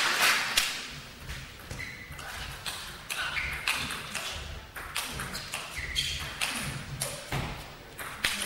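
Table tennis rally: the ball clicks sharply off the players' bats and the table in quick back-and-forth strokes, with short shoe squeaks on the court floor. Applause dies away at the start.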